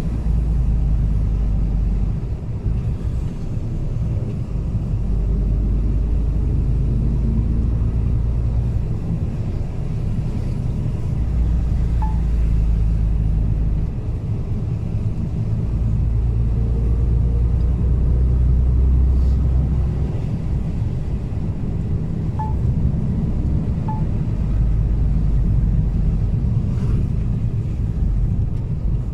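Mercedes-Benz Actros truck's diesel engine running as it drives, heard from inside the cab. A deep rumble swells and eases in stretches of a few seconds as the engine load changes.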